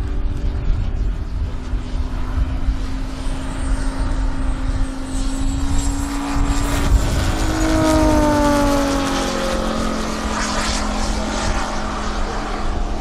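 A Vought F4U Corsair's radial piston engine and an L-39 Albatros jet trainer's turbofan passing overhead together, a steady engine drone whose pitch drops about two thirds of the way through as they go by, with a thin high whine sliding down before it.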